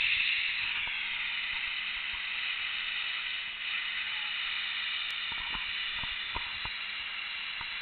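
Snowmaking gun blasting water and compressed air into snow: a steady hiss, with a faint low hum under it.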